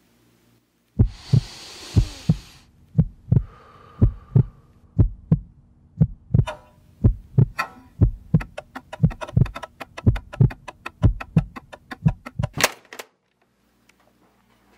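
Heartbeat sound effect, a low double beat that speeds up steadily, with a rushing swell near the start. It ends on a sharp crack and cuts off abruptly about two seconds before the end.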